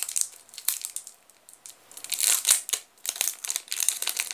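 Foil wrapper of a Yu-Gi-Oh! booster pack being torn open and crinkled by hand: irregular crackling and rustling, with a quieter lull about a second in before the crinkling picks up again.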